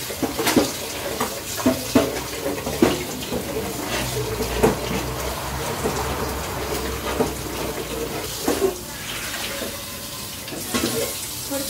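Running water with scattered knocks and clatters of kitchen utensils.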